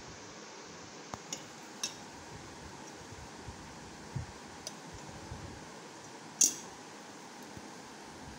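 Pieces of a tin toy tea set clinking and tapping as they are handled: the teapot lid and tin plates are knocked and set down. There are about seven light metal clicks, the loudest a little past six seconds in, over a steady background hiss.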